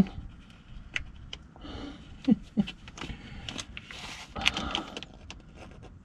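Rustling and scattered small clicks of a flexible plastic pouch of gear oil being squeezed into a rear differential's fill hole, with a brief grunt about two seconds in.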